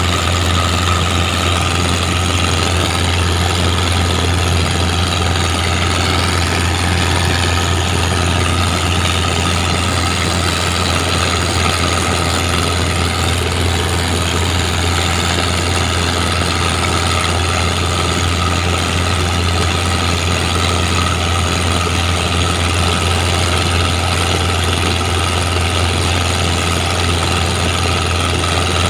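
Mitsubishi 4D31 four-cylinder diesel engine fitted in a boat, running steadily with a deep, even hum and no change in speed.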